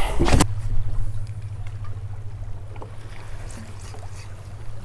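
A brief splash right at the start as a released speckled trout drops back into the water, then a steady low rumble of water and wind around a small drifting boat, with faint scattered ticks.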